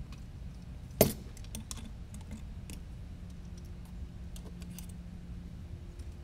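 Light clicks and rattles of a carbon-fibre FPV drone frame and its small parts being handled on a bench, with one sharp knock about a second in.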